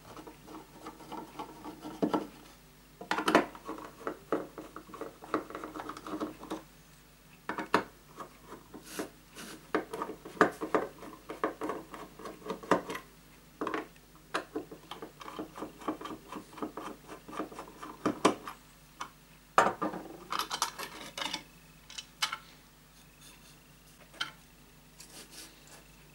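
Hand screwdriver turning out the small screws of a plastic module lid: spells of scraping, rubbing and clicking of the blade in the screw heads. Hard taps and clicks come in between as the screws and the plastic lid are handled and set down.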